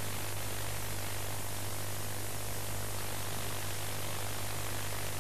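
Steady static hiss with a low, constant electrical hum underneath: the noise floor of an old, worn recording, with nothing else sounding.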